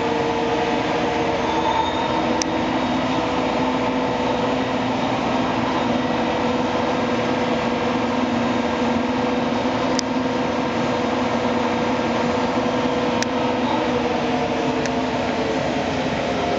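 Large TOS Celakovice SUA 100 CNC lathe running, its spindle drive and gearbox giving a steady whine of several tones over mechanical noise. A few short sharp ticks come through, about two and a half seconds in and again later.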